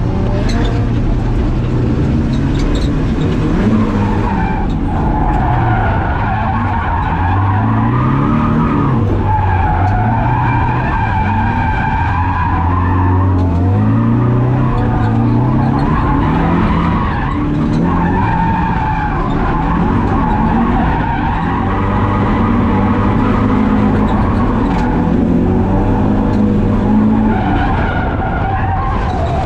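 Drift car on track, its engine revs rising and falling again and again every second or two while the tyres skid.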